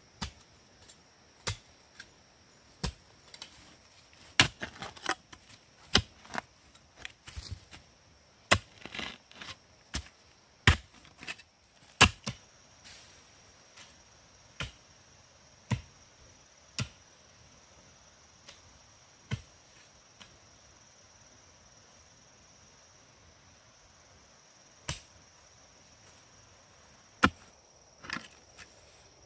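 A long-handled digging bar jabbed again and again into hard, stony soil to dig a post hole: sharp separate strikes about one to one and a half seconds apart, with a lull of several seconds about two-thirds through.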